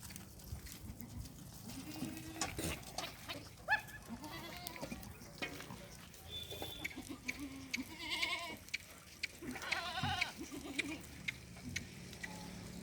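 Sirohi and Gujari goats bleating, several separate wavering calls one after another, the loudest two about eight and ten seconds in, with scattered light clicks and rustles between them.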